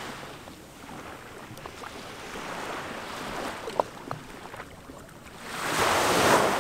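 Sea waves washing onto the shore as a rushing surge: one dies away at the start and another builds to a loud peak near the end, with a few small knocks in between.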